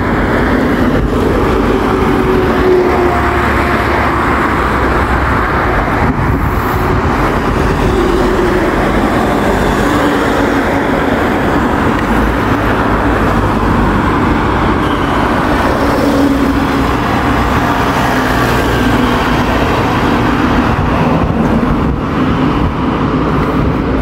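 Steady road traffic noise: cars passing with engine and tyre noise over a heavy low rumble.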